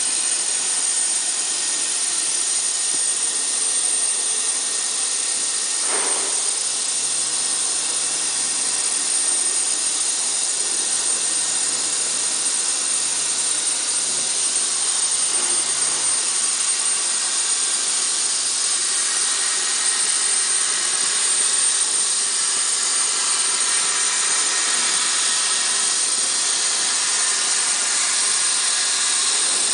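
Hypertherm HPR260 plasma torch on a CNC gantry cutting metal plate: a loud, steady hiss of the plasma arc with a high whine running through it.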